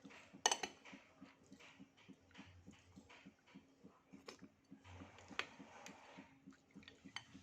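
Close-miked mouth sounds of someone chewing soft durian and mung beans: wet smacks and small clicks at a steady three to four a second, with a sharper cluster of clicks about half a second in.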